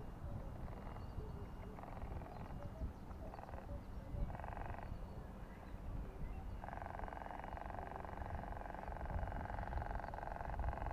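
Small brushed electric motor, salvaged from a hair dryer, driving an RC toy boat's propeller: it buzzes in short throttle bursts, then runs steadily from about two-thirds in, rattling as the propeller hits the bottom of the hull. Wind rumbles on the microphone throughout.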